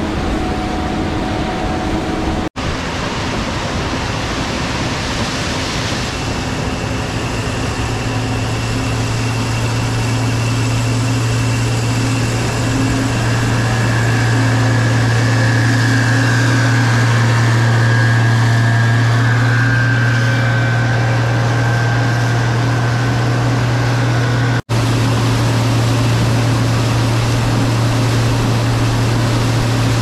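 Gleaner combine harvesters running in the field: a steady engine and machinery hum with a strong low drone. The sound drops out briefly twice where the footage changes.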